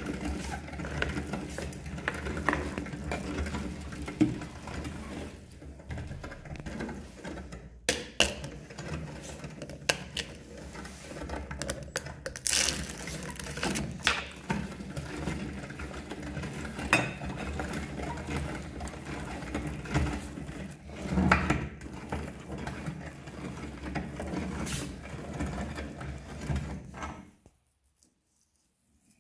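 Hand-cranked metal meat grinder turning, its auger grinding colored eggs through the plate, with a steady mechanical churn, clicking and several louder knocks. It stops abruptly near the end.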